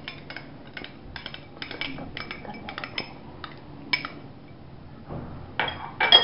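Metal spoon clinking and scraping against glass bowls as marinade ingredients are spooned onto raw chicken pieces. It makes a run of light, irregular clinks and taps that grow louder near the end.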